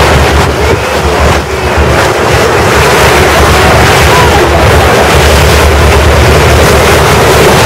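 A motorboat under way: a loud, steady rush of water and spray along the bow over a low motor drone, with wind buffeting the microphone.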